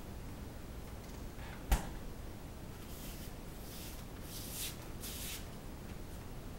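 A single sharp knock about two seconds in, then four short, soft hissing rustles over the next few seconds, against low room noise.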